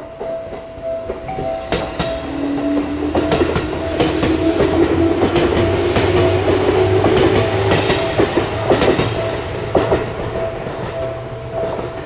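A Seibu Ikebukuro Line electric train passing close by a level crossing, its wheels clacking over rail joints and its traction motors whining, rising in pitch. The loudest part comes about four to nine seconds in. A Japanese crossing alarm keeps dinging in an even repeating rhythm throughout.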